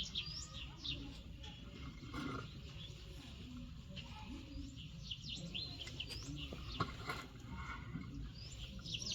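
Small birds chirping in quick clusters of short sweeping notes, over a steady low rumble, with a couple of light knocks.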